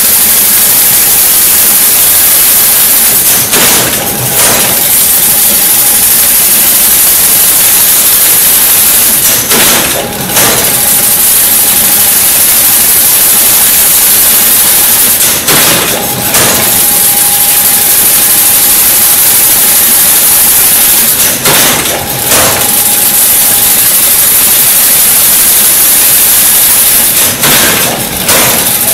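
Automatic chain-link fence weaving machine running: a steady, loud hissing, rattling mechanical noise, with a short clatter repeating about every six seconds.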